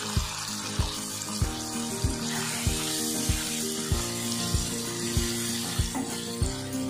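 Okra and kasundi mustard sauce sizzling in oil in a frying pan as they are stirred together with a wooden spatula, over background music with a steady beat.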